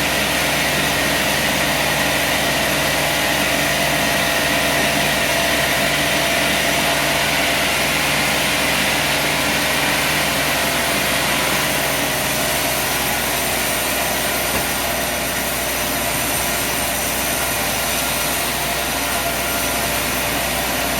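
Sawmill running steadily: a constant engine note with a hiss over it. One low tone drops away a little past halfway.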